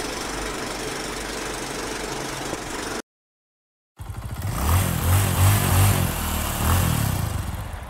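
A steady mechanical whirr and clatter, like a film projector, plays under the countdown leader and cuts off suddenly. After a second of silence, a vehicle engine revs up and down several times.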